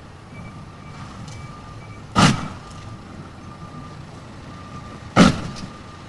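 Faint repeated beeping of a heavy vehicle's reversing alarm over engine noise, with two loud bangs about three seconds apart.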